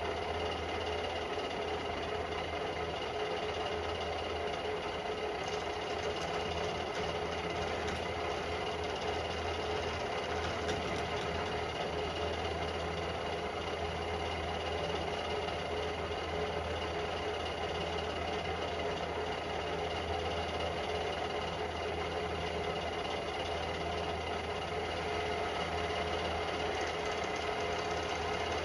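Centec 2B milling machine running in horizontal mode, fast and in middle gear, its arbor-mounted disc cutter taking a cut along a metal bar. A steady mechanical running sound with constant whining tones and a low hum.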